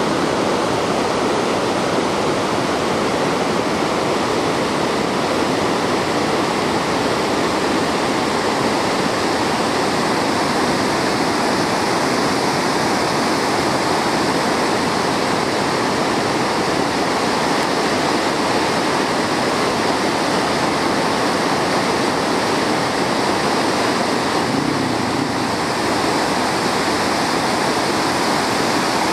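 Floodwater pouring over an overflowing dam spillway and rushing through a rocky channel below, a steady unbroken rush of whitewater. The dam is spilling because the reservoir is at its maximum level after heavy rain.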